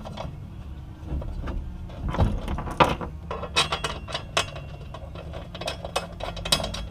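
Irregular metallic clinks and clicks of hand tools and a steel bracket as bolts are run down into rivet nuts, over a steady low hum.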